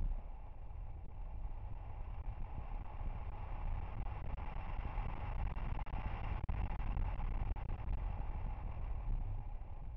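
Mitsubishi Lancer Evolution X at speed on a rally stage, heard from a camera mounted on the outside of the car: a steady rumble of wind rush and engine, with the sound cutting out for an instant a few times.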